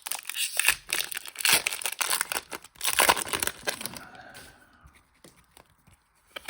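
Foil wrapper of a Pokémon booster pack being torn open and crinkled, dense crackling for about four seconds, then dying down to a few light taps.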